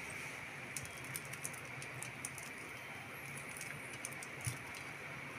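Sesame oil poured from a bottle into an empty aluminium pressure cooker: faint scattered ticks and clicks over a steady low hiss, with a soft knock about four and a half seconds in.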